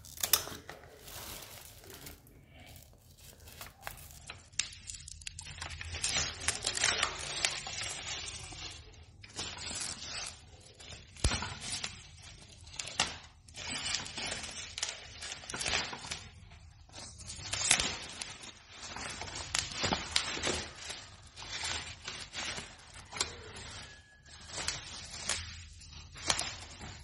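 Bubble wrap crinkling and tearing on and off as it is cut away with scissors.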